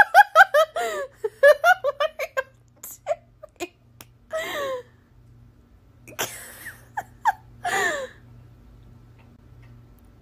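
A person laughing: a quick run of giggles in rapid bursts, then breathier laughs with gasps about four and six to eight seconds in.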